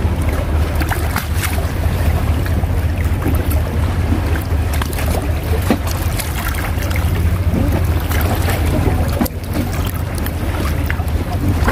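Wind buffeting the microphone as a steady low rumble, with scattered light clicks and knocks over it.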